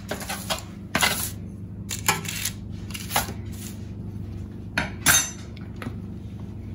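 Metal spoon scraping and clinking against an enamelled roasting pan, about six short strokes with the loudest about a second in and about five seconds in, as roasted butternut squash wedges are turned in the pan.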